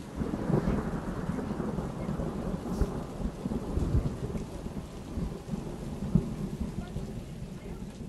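Rolling thunder rumble with rain, a dense low rushing noise that starts suddenly and slowly dies away.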